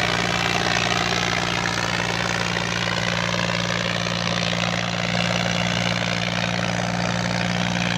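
An engine running steadily at an even speed, making a constant low pulsing drone that does not change in pitch or loudness.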